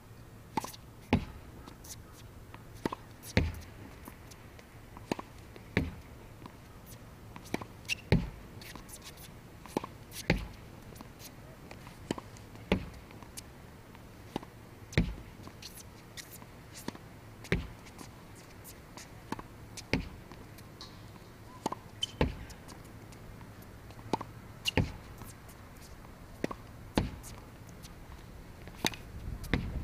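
Tennis backboard rally: a tennis racket hitting the ball, the ball striking the backboard and bouncing on the hard court. The sharp impacts come in a steady cycle, about one hit every two and a half seconds.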